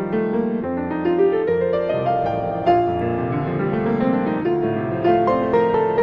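Background music: a piano tune, one note following another.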